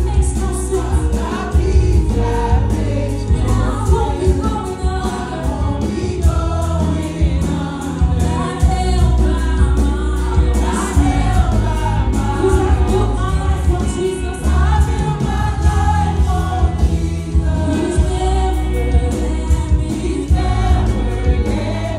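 Gospel music: a choir singing over a heavy, steady bass line.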